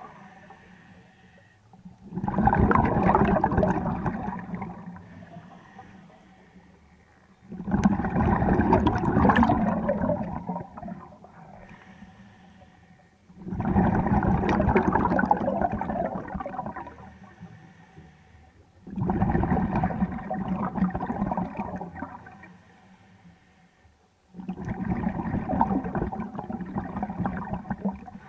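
Scuba diver breathing on a regulator underwater: five loud bubbling rushes of exhaled air about every five and a half seconds, each lasting around three seconds, with quieter stretches between.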